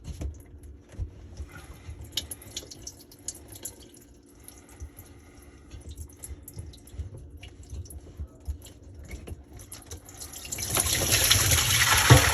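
Small clicks and knocks of the plastic drain fittings being handled under the sink, then, about ten and a half seconds in, a loud rush of backed-up water pouring out of the sink drain as the clogged P-trap comes loose.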